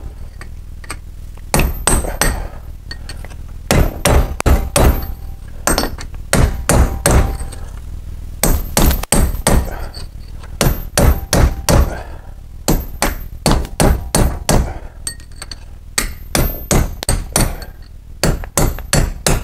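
Hammer driving a punch against a steel bearing race to knock it out of its housing, in quick runs of several blows with short pauses between, as the race is worked out a little at a time around its edge. The blows ring faintly.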